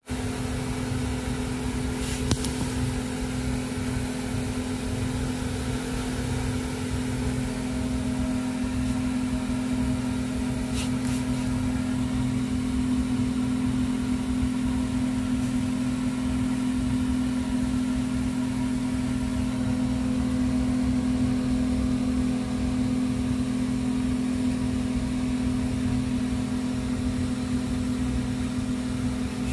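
A steady mechanical hum with a constant low drone that does not change, like a running motor or fan. Two faint ticks come through, about two seconds in and again near eleven seconds.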